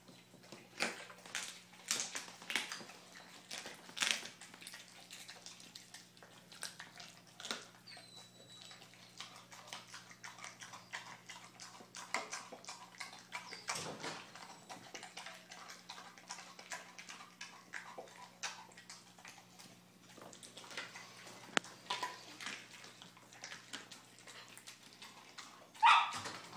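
American Staffordshire Terrier chewing and tearing at a whole raw chicken: irregular wet smacking, licking and crunching bites with clicks of teeth, and a louder burst near the end as the chicken is shoved across the floor. A faint steady low hum runs underneath.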